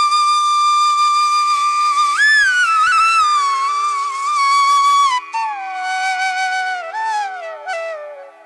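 Background music: a slow solo melody of long held notes that bend and slide in pitch, over a steady low drone. It fades out near the end.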